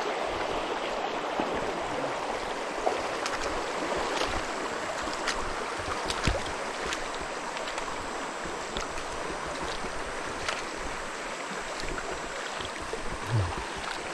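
Small river's water flowing steadily with an even rushing sound, broken by scattered sharp clicks and knocks and a short dull thump near the end.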